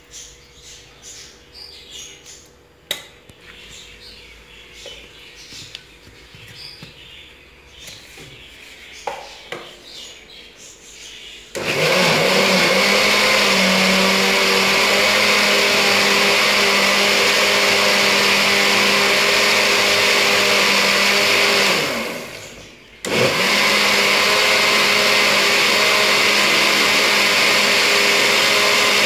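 Moulinex mixer grinder blending boiled tomato pulp in its steel jar. Before that come light clinks of a spoon scraping pulp into the jar. About 12 s in, the motor starts and runs loud and steady. Around 22 s it winds down and stops, then starts again a second later and runs on.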